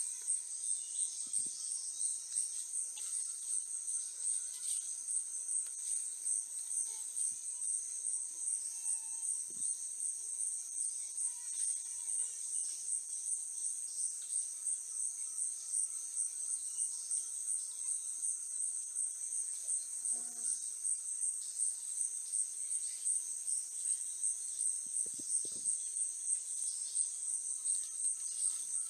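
Steady, high-pitched chorus of forest insects with an even, rapid pulse.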